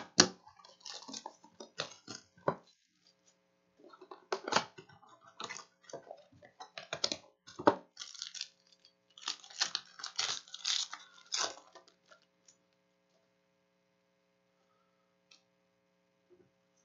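Crown Royale trading-card box being opened and a card pack's wrapper crinkled and torn open, in irregular crackly bursts that stop about twelve seconds in.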